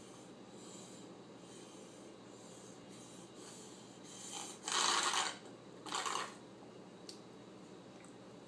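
A toddler slurping milk through a drinking straw from a nearly empty cereal bowl, the straw drawing air with the last of the milk: two loud slurps, the first about five seconds in and lasting about half a second, the second a moment later and shorter.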